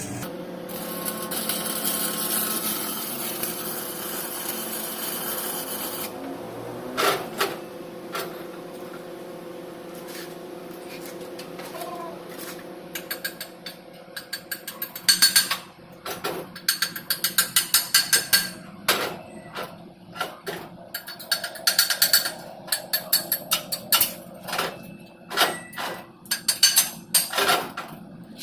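Stick-welding arc crackling and hissing for about six seconds as a tack weld is laid on the steel pipe joint, over a steady low hum. It is followed by scattered knocks and then quick runs of hammer strikes on the steel, as the tacks are chipped and knocked clean of slag.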